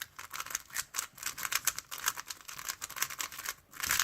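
Magnetic 3x3 speed cube, a Moyu Weilong GTS V2, being turned rapidly by hand: a fast, uneven run of light plastic clicks and clacks as the layers snap around.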